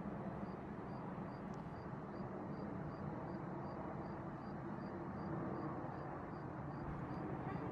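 Steady outdoor rumble of distant city traffic, with a faint high tick repeating about twice a second.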